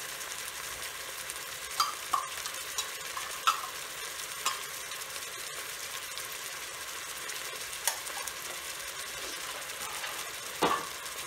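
Chorizo meatballs and sliced black olives sizzling steadily in the pot of an electric rice cooker on saute mode, with a few sharp clicks of a fork against the pot.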